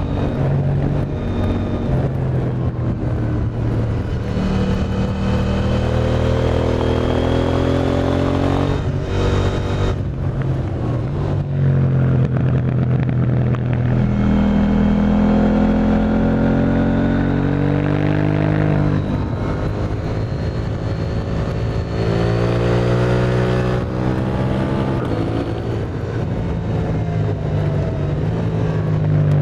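KTM 890 Duke R's parallel-twin engine breathing through an Akrapovič exhaust while the bike is ridden, the engine note rising several times under acceleration and dropping back between the pulls.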